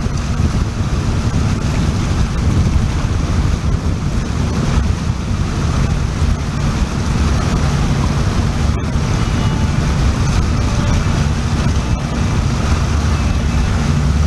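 Boat engine running steadily under the noise of wind on the microphone and water.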